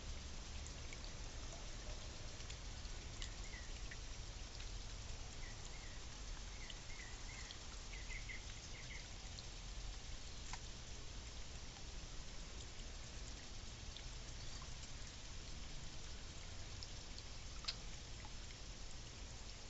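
Faint backyard bird chirps: several short runs of quick high notes in the first half, over a steady rain-like hiss, with a few sharp ticks.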